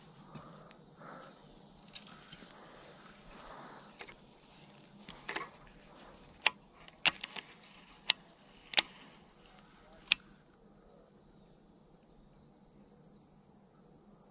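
Steady chorus of crickets singing in a high, even band. A handful of sharp, loud clicks stand out between about six and ten seconds in.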